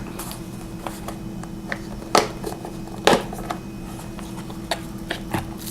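Light clicks and knocks of a flashlight carrying case being opened and its contents handled, with two sharper knocks about two and three seconds in, over a steady low hum.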